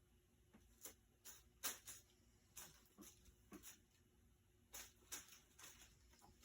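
Faint, irregular light clicks and rustles, about ten short ones with uneven gaps between them.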